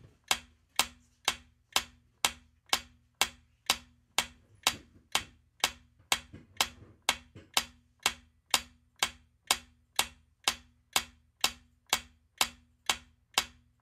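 Countdown timer sound effect, an even clock-like ticking at about two ticks a second, marking the answer time running down.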